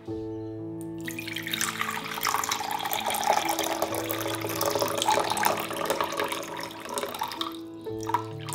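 Water poured in a thin stream into a glass Pyrex measuring jug, splashing steadily as the jug fills for about six seconds, then tapering off to a couple of drips near the end.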